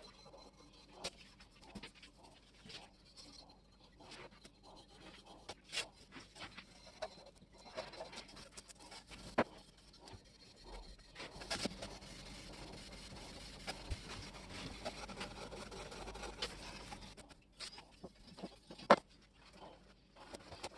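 Quiet hand-work noises: scattered light clicks and taps, with a stretch of steady rubbing in the middle and one sharper click near the end.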